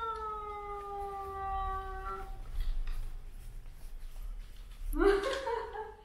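Dog giving one long howl that slides slowly down in pitch and fades out about two seconds in, followed by a shorter, wavering call about five seconds in.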